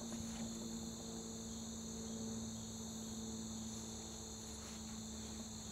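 Steady, unbroken high-pitched insect chorus, with a steady low hum underneath.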